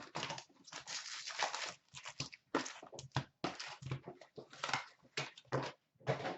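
Hockey card packaging being torn open and crinkled, a run of irregular ripping and rustling sounds with short pauses between them.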